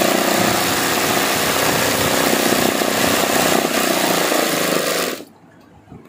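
Sewing machine running fast while stitching machine embroidery into fabric, then stopping abruptly about five seconds in.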